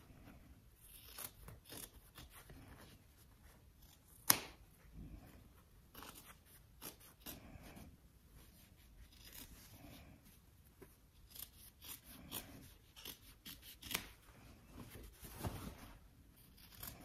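Small scissors snipping through quilting cotton, trimming down a seam allowance: a run of short, irregular snips, with one sharper click about four seconds in.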